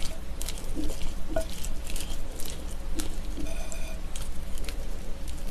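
Chopsticks stirring raw trout slices and vegetables in red pepper sauce in a glass bowl: wet squishing with many light clicks. A short ringing note sounds about three and a half seconds in.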